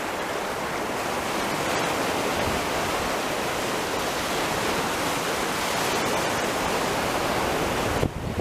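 Steady rushing of sea surf washing in, which cuts off abruptly about 8 seconds in.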